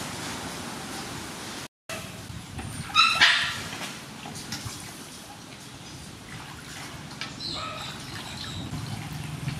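A dog yelps loudly about three seconds in and again, more faintly, about seven and a half seconds in. Under it, water splashes as a watermelon is scrubbed by hand in a metal basin.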